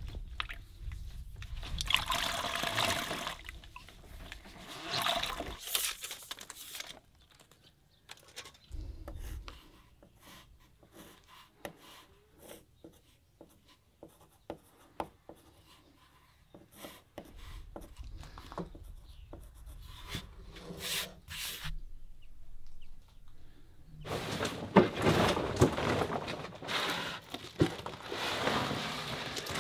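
A run of hands-on work sounds. Water sloshes and splashes in bursts as a mop is worked in its bucket, then light taps and scratches are heard, then a longer stretch of scraping and knocking as wooden formwork panels are shifted against each other.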